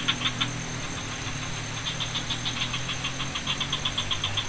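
Night insects calling: a rapid pulsed chirping, about seven or eight pulses a second, that pauses briefly about half a second in and then runs on, over a steady high whine and a low drone.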